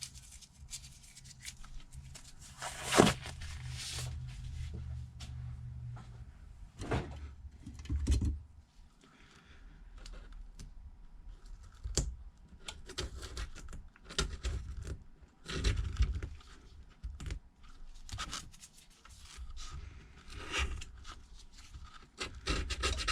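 Old adhesive being scraped and peeled off an iPad Air housing: irregular scratchy scraping and tearing, with scattered sharp clicks and knocks of the tool against the frame, the loudest about three seconds in.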